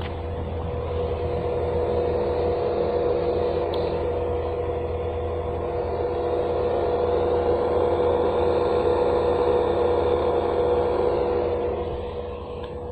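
Solar pump inverter driving a 5 kW water pump: a steady electrical hum with a held, pitched whine, swelling a little and easing off near the end.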